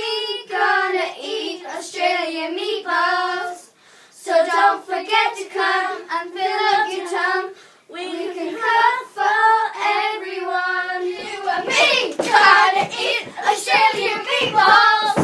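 A small group of young girls singing together unaccompanied, a cappella, in short phrases with brief pauses. About three-quarters of the way through the singing turns louder and rougher, mixed with scuffling and thuds as they start dancing about.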